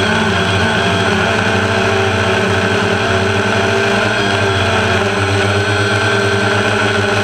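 Motors and propellers of a remote-controlled camera aircraft, a steady whine with a slight wobble in pitch as it flies.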